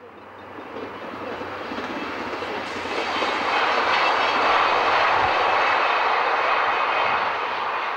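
Diesel passenger train running past on a rural line, its rushing and rumbling swelling to a peak around the middle and slowly fading as it moves away.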